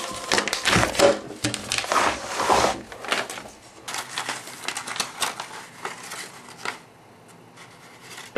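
Paper crinkling and rustling in a person's fingers, pressed against a torn window screen: rapid crackling, thick for the first three seconds, then sparser, dying away about seven seconds in.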